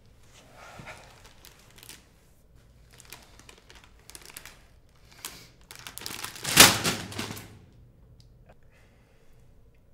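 Handling noises of a person moving about: scattered small clicks and rustles, with one louder rustle and thump about six and a half seconds in.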